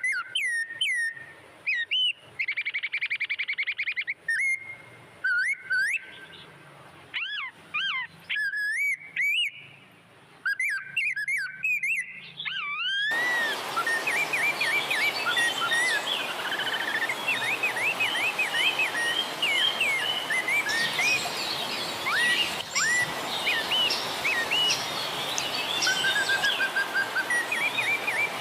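Songbirds singing: short whistled calls that swoop up and down, with a buzzy trill about 3 seconds in. About 13 seconds in the sound cuts to a denser chorus of bird calls over a steady hiss.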